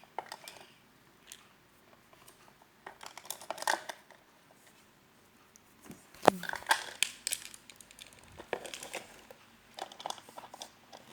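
Small plastic toy pieces and doll clothes being handled: scattered clicks and rustling in bursts, with a sharper knock about six seconds in.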